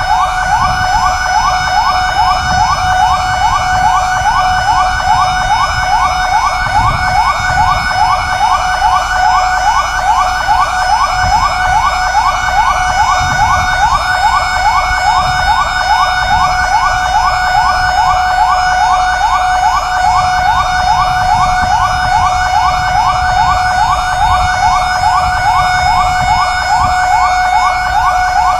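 Fire engine siren in a fast yelp: quick rising sweeps repeating several times a second, over a steady tone, with a low engine rumble beneath.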